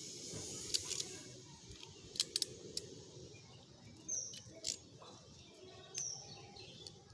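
Sharp snips and clicks of an RJ45 crimping tool's cutting blade trimming away the plastic separator and rip cord inside a Cat6 cable, in small clusters about a second in and just after two seconds. Two short, high, falling chirps sound about four and six seconds in.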